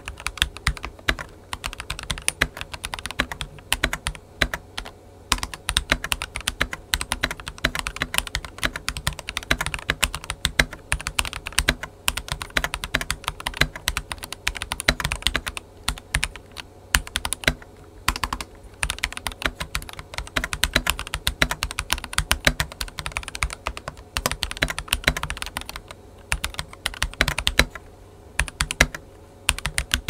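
Keychron V3 plastic tenkeyless mechanical keyboard, stock, with Akko Matcha Green linear switches and PBT keycaps, typed on at a fast, steady pace: a dense run of keystrokes with a few short pauses. Its internal silicone pad seems to mute some of the noise.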